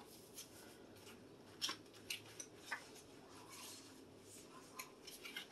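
Faint handling of a small cardboard palette box: scattered soft clicks and light rustles as it is turned over and opened.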